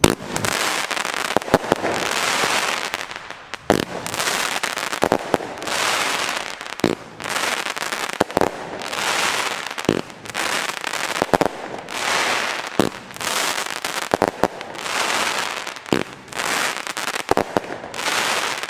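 Doppeldeck firework cake firing shot after shot, about one every one and a half seconds: each sharp bang is followed by about a second of dense crackling from its crackling stars and breaking stars.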